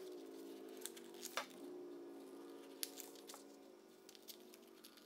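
Scissors cutting through folded paper: a few sharp, scattered snips, over a faint steady hum.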